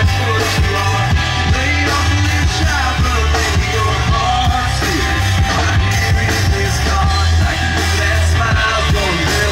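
Live band playing: a man singing into a microphone over electric guitar and bass guitar, with a strong steady bass line.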